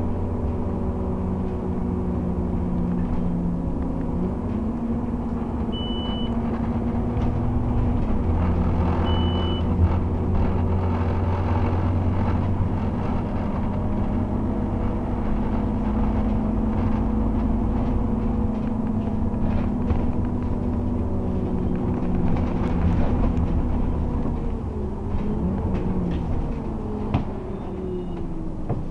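Interior of a 2009 Scania Omnicity single-deck bus under way: the diesel engine and drivetrain run with a steady rumble, the engine note stepping twice in the first eight seconds and falling away near the end as the bus slows. Two short high beeps sound about three seconds apart.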